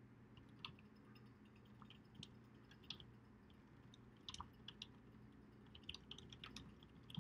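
Faint, irregular keystrokes on a computer keyboard as a line of text is typed, with clusters of quick clicks about four seconds in and again around six seconds in, over a low steady room hum.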